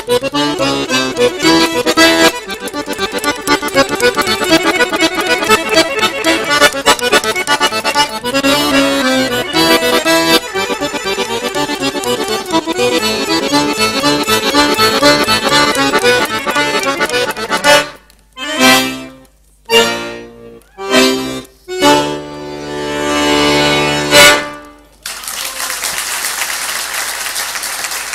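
Piano accordion played fast and densely, then ending on a handful of separate loud chords with short gaps between them, the last one held for about two seconds. Applause breaks out about three seconds before the end.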